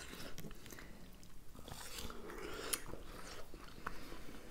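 Close-up eating sounds of juicy melon and watermelon: soft wet bites and chewing with small scattered clicks.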